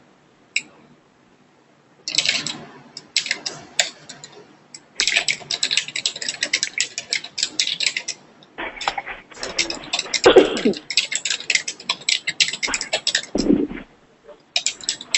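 Fast typing on a computer keyboard in quick runs of keystrokes, starting about two seconds in, with a short pause a little past the middle.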